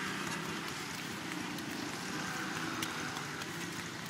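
Steady traffic noise on a rain-wet street, with a low rumble and a few light ticks.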